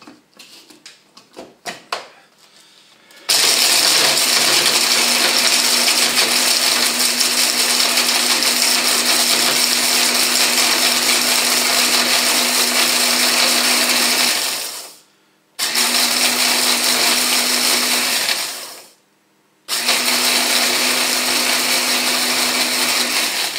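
Electric hand blender with its chopper attachment grinding hard, toasted sandwich bread into breadcrumbs, with the bread pieces rattling in the bowl. After a few clicks as it is set up, the motor runs steadily for about eleven seconds, stops briefly, then runs twice more, a few seconds each.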